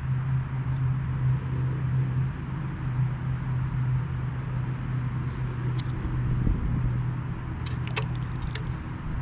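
An engine or motor running steadily with a low, even hum, and a few light clicks near the end.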